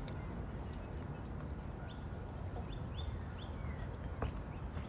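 Birds chirping, many short quick calls overlapping, over a steady low rumble.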